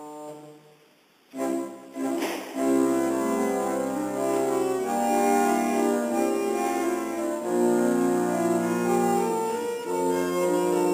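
Early Victorian tracker-action pipe organ: a held chord dies away into a brief pause, then after a couple of short sounds the playing resumes with sustained chords over low bass notes.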